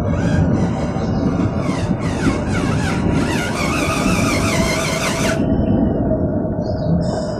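Radio-controlled Hino 500 scale dump truck driving loaded through soil: a steady low rumble with a high whine that wavers up and down in pitch, the whine cutting off abruptly about five seconds in.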